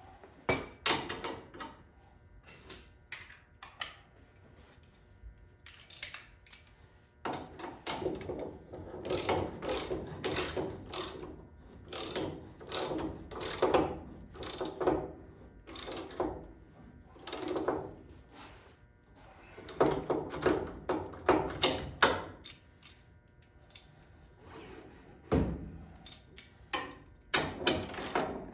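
Hand ratchet wrench clicking in repeated bursts with short pauses, as nuts are run down on the front suspension.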